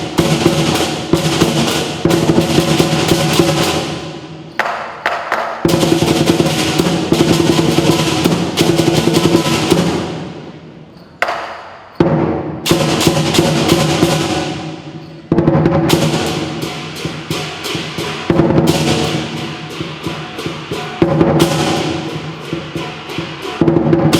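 Lion dance percussion: a big drum struck in rapid strokes together with crashing cymbals and a ringing gong. The playing breaks off several times, letting the crash ring down before starting again.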